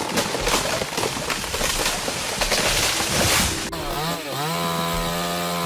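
Two-stroke chainsaw engine. First comes a noisy, crackling rush. After a sudden cut about two-thirds of the way through, the saw runs at high revs, holding a steady pitch with brief dips as it takes load.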